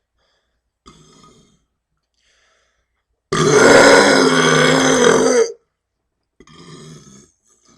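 A deliberate, loud burp lasting about two seconds, starting about three seconds in. Quieter short sounds come before and after it.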